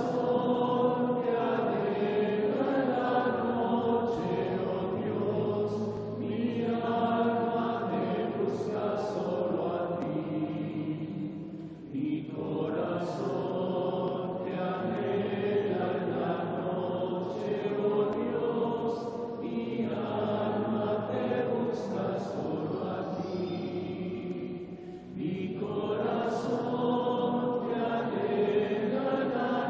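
Congregation singing a slow, repetitive Taizé chant, the same sung phrase coming round again about every thirteen seconds with a short breath between repeats.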